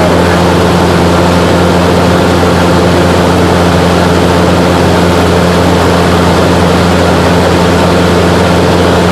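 Small propeller airplane's engine and propeller running steadily in cruise flight, a loud, even drone that holds one pitch throughout, as heard from aboard the plane.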